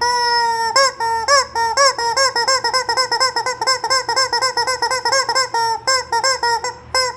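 Rubber squeaky chicken toy squeaked over and over: one long squeal at the start, then a quick run of short, high-pitched squeaks at about four a second.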